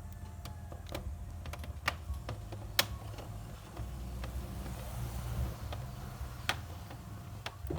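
Plastic bottom cover of an Acer Aspire 5 laptop being pried off, its retaining clips clicking and snapping loose in irregular sharp clicks, the loudest about three seconds in.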